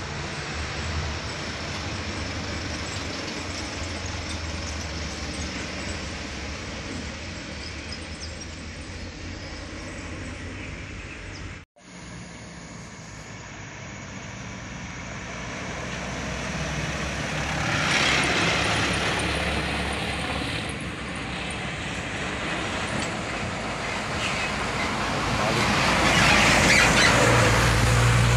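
Trucks passing on a road: steady engine hum and tyre noise. The sound drops out for an instant, then builds to two swells as trucks pass close, the louder near the end as a fuel tanker truck goes by.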